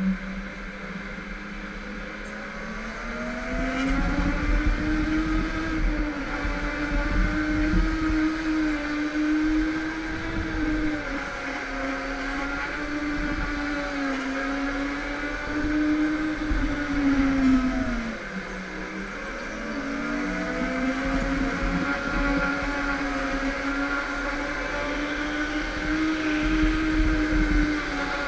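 Go-kart motor running under the driver, its steady pitch rising as the kart speeds up and falling as it slows for corners, with a deep dip about eighteen seconds in, over a low rumble from the chassis and tyres on concrete.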